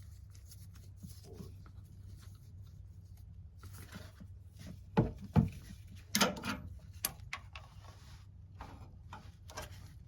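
Scattered knocks and clicks of handling and tool contact while working the oil filter off from under the vehicle, loudest a few times past the middle, over a low steady hum.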